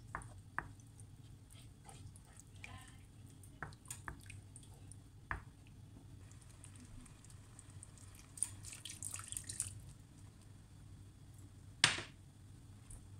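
Coconut-milk curry sauce simmering quietly in a frying pan, with scattered small pops and ticks. There is a cluster of crackling about nine seconds in and one louder knock near the end.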